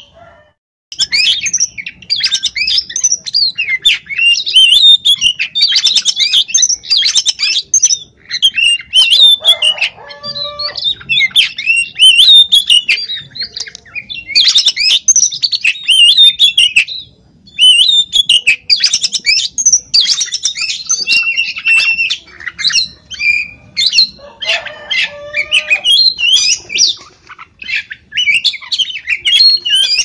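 Oriental magpie-robin (kacer) singing loudly in a fast, varied, almost unbroken stream of whistled and chattering notes, pausing briefly about a second in and again about halfway through.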